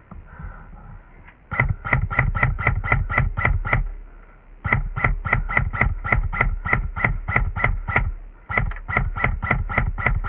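Airsoft gun firing on full auto in three long strings of shots, about six to seven a second, with short pauses between the strings.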